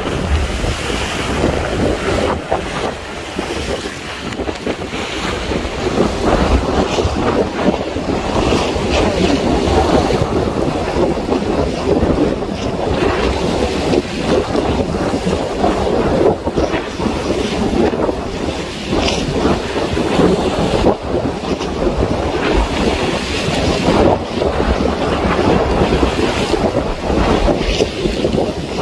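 Strong wind buffeting the microphone over the rushing and splashing of high waves around a boat in rough sea.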